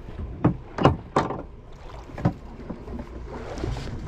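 Boat drifting at sea: water slapping against the hull under a low rumble, with a few sharp, irregular knocks about half a second, one second and two seconds in.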